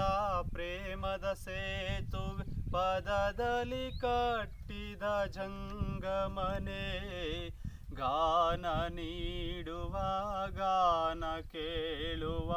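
A man singing a Kannada song unaccompanied, in long held notes that waver in pitch, broken by short pauses for breath.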